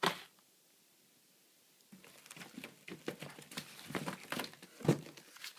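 Plastic-wrapped firecracker packs being handled and set down on a wooden table: a knock at the start, then from about two seconds in a run of crinkling and rustling of the wrap with a few sharper knocks, the loudest near the end.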